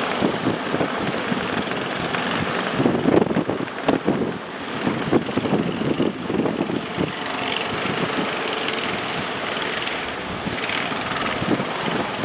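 A fishing boat's engine drones steadily under strong wind buffeting the microphone, with surf noise behind.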